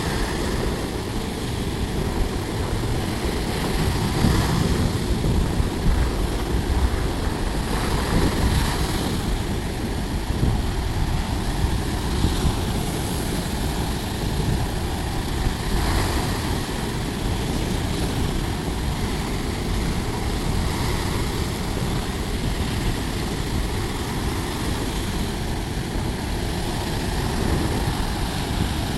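Sea waves breaking and washing on the beach: a steady, heavy rumble of surf that swells a little about four to nine seconds in.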